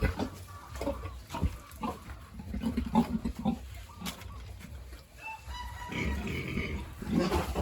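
Pigs grunting in short repeated pulses as a sow nurses her piglets, with a higher-pitched call a little past the middle.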